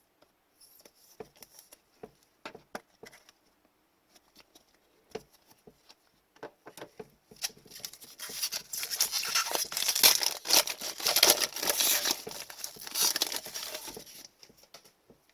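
Scattered light taps and clicks, then from about seven seconds in a long, loud stretch of crinkling and tearing: an Upper Deck hockey card pack's foil wrapper being ripped open.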